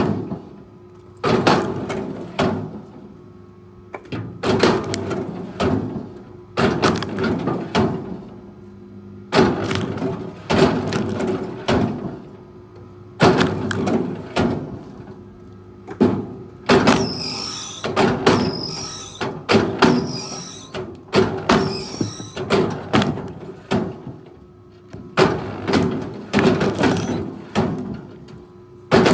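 Heavy forestry machine working wood, with clusters of loud knocks and cracks every couple of seconds over the steady hum of its engine. A few short high squeaks come a little past the middle.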